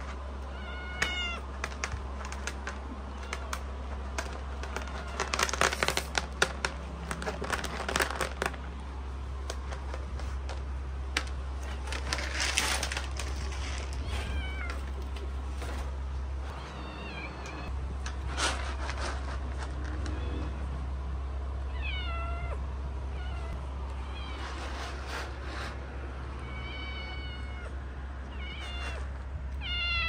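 Cats meowing: short calls that fall in pitch, scattered through, several close together near the end. Bursts of clicks and noise come between about five and eight seconds in and again near thirteen seconds, over a steady low hum.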